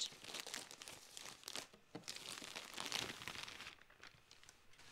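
Plastic poly mailer bag crinkling and rustling as it is opened and folded clothes are pulled out of it, dying away after about three and a half seconds.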